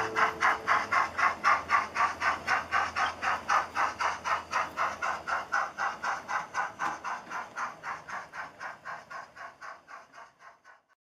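Steam-locomotive chuffing, an even beat of about four to five chuffs a second that fades away gradually to nothing near the end. The last note of a song dies out in the first second.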